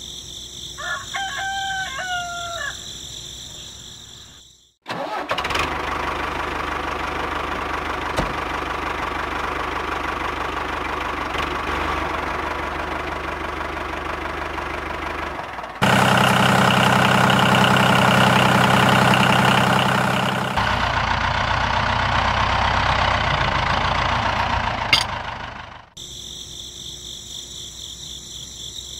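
A rooster crows once over a steady chorus of insects. Then, after an abrupt cut, a steady engine-like running sound takes over for about twenty seconds, louder for a few seconds in the middle, with a sharp click just before it cuts off and the insect chorus returns.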